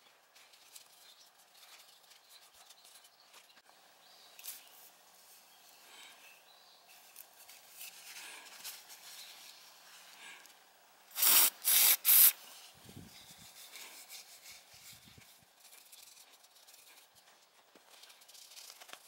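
Three short, loud hisses from an aerosol can of heat-resistant wax sprayed onto a cloth, about eleven seconds in. Around them, faint rubbing of the cloth wiping the cylinder head and fins of a Honda CB750 engine.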